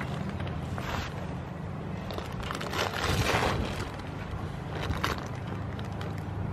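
Goat nibbling and crunching food off the ground in a few short bursts, the loudest about three seconds in, over a steady low hum.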